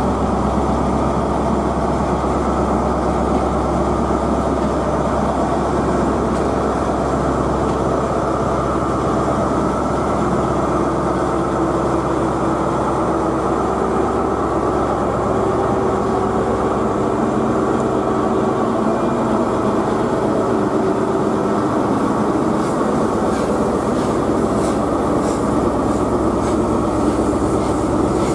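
Train running steadily on the rails: an even, continuous rumble, with some light clicking near the end.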